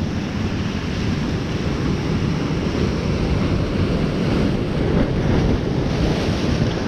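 Ocean surf washing in steadily, with wind buffeting the microphone as a low rumble. The surf swells slightly about halfway through.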